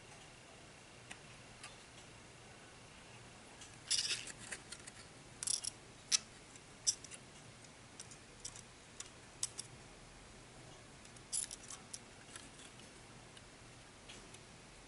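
Thin copper wire and a plastic strip being handled and twisted together by hand: scattered faint clicks and short crackles, busiest in the middle.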